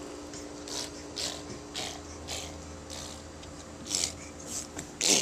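A toddler's rhythmic breathy huffs, about two a second, ending in a brief squeal.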